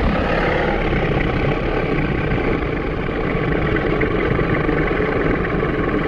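Phoenix Rex creature sound effect: a long, loud, rough rumble without a clear pitch, held steady for about six seconds.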